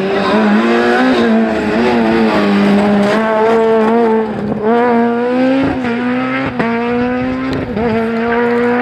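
Rally car engine at high revs, its note climbing and then dropping several times as it shifts gear, with a few short sharp pops in between.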